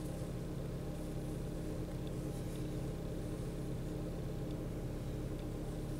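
Four-cylinder engine of a 2007 Pontiac G6 idling steadily, a low even hum. It runs although the scan tool reads engine RPM stuck at zero, because of a crankshaft position sensor signal fault (P0335).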